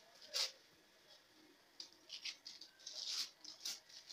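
Hands pressing and spreading raw minced meat over buttered aluminium foil: irregular short crinkles and pats, the loudest about half a second in and a cluster of them around three seconds in.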